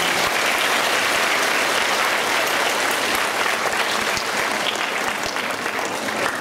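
Audience applauding, the clapping easing off slightly near the end.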